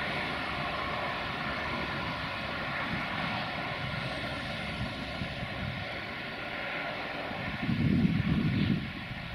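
Diesel locomotive hauling a train of passenger coaches away, its engine running steadily under power with a steady drone. A brief louder low burst comes about eight seconds in.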